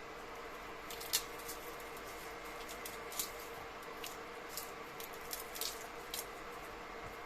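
Small scattered clicks and taps, about nine of them, the strongest about a second in, from handling kitchen items and ingredients while preparing a remedy, over a steady low room hum.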